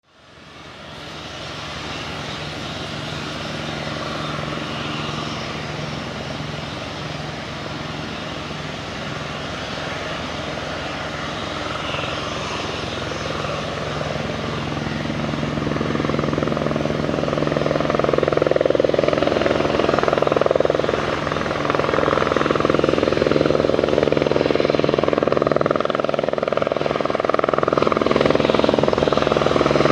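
Airbus AS350B3 Ecureuil helicopter approaching, its three-blade main rotor and single turboshaft engine running steadily. The sound fades in at the start and grows louder as the helicopter closes in, levelling off about two-thirds of the way through.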